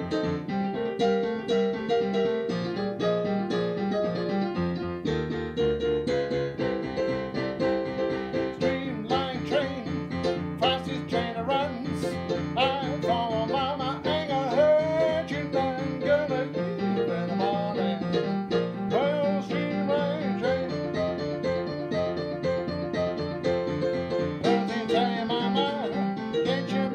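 Digital piano playing a jazz tune with a repeating left-hand bass figure. A man's voice sings over it from about nine seconds in.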